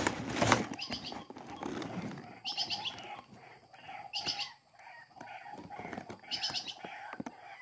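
White-breasted waterhen (ruak-ruak) calls, a burst of harsh repeated notes about every two seconds. A loud sudden noise comes right at the start.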